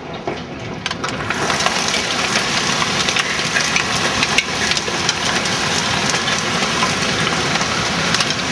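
Large hail, near golf-ball size, pelting down: a dense, continuous clatter of countless impacts with sharper individual cracks standing out, getting louder about a second in.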